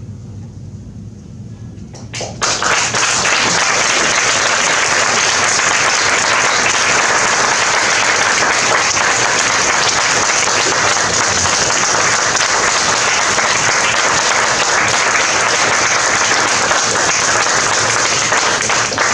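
After a short hush, an audience starts applauding about two seconds in. The clapping stays steady and full, then thins and breaks into scattered claps near the end.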